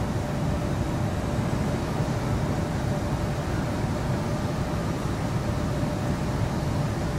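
Steady hum and noise of factory machinery on a car-body dip-coating line, with a faint steady tone over it.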